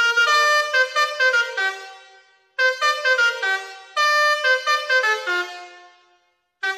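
Basuri melodic multi-tone horn playing a quick tune of short notes in three phrases, each trailing off before the next begins, with another phrase starting right at the end.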